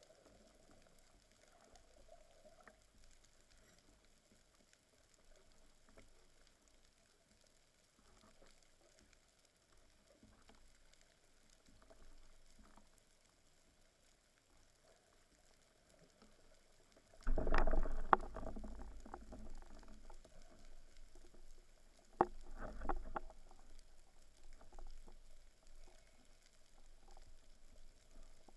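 Speargun handled underwater: a faint steady underwater hiss, then about two-thirds of the way in a sudden burst of knocks and rattles against the gun-mounted camera lasting a couple of seconds, and a shorter burst a few seconds later.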